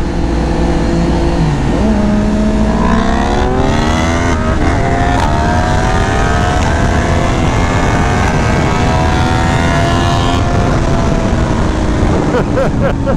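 Inline-four naked motorcycle engine under hard acceleration: its pitch climbs, steps down at a gear change about four and a half seconds in, climbs again more slowly, then the note falls away at about ten seconds as the throttle closes.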